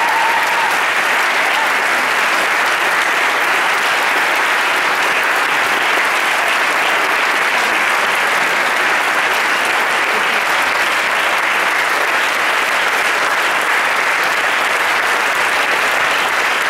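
Audience applauding steadily, a dense even clapping that holds at the same level throughout.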